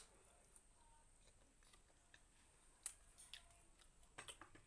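Near silence with a few faint clicks: one about three seconds in and a short run of small clicks near the end.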